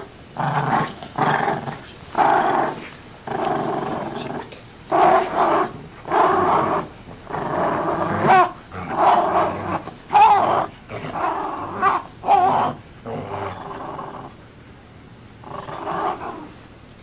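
A dog growling over and over, a run of short growls about one a second that thins out near the end, heard on an old cassette recording.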